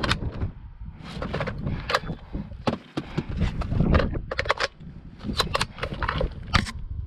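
Irregular clicks and clacks of an Ares CTAR airsoft rifle being handled during a magazine change.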